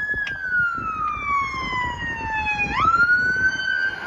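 Police car siren wailing: a long tone slides slowly down in pitch, sweeps quickly back up about three seconds in, and starts climbing again, over a low rumble.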